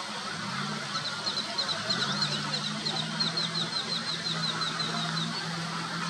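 A bird's rapid series of short, high notes, about four a second, lasting around four seconds, over a steady low hum.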